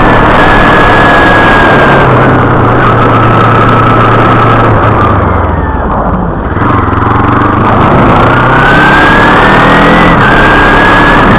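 Kawasaki Ninja 250R's parallel-twin engine riding along under loud wind noise on the microphone. The engine note steps down about two seconds in, and engine and wind ease off around the middle as the bike slows. The note then climbs again and steps down once more near the end.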